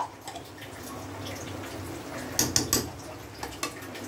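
Faint bubbling and crackling from a pot of layered biryani rice, with a cluster of sharp clicks about two and a half seconds in.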